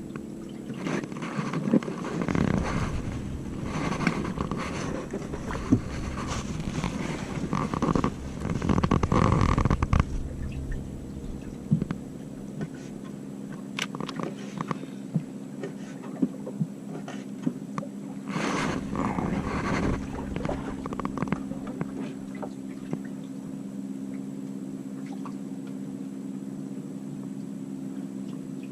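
A steady motor hum, typical of a boat's engine, with gusts of wind buffeting the microphone about a second in and again a little past halfway, and a few scattered clicks.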